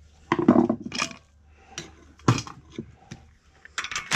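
Irregular metallic clinks and knocks of hand tools and loose parts on the Kohler Command engine's cylinder head, as the rocker arms are worked loose.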